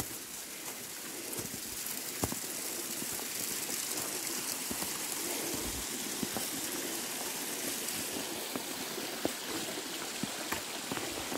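Steady rushing of a small forest stream, with occasional footsteps crunching on snow and dead leaves.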